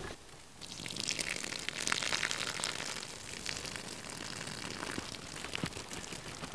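Hot pasta water being poured off through the strainer lid of a small MSR camp cooking pot: a steady splashing pour that starts about half a second in, with a few faint clicks of the lid.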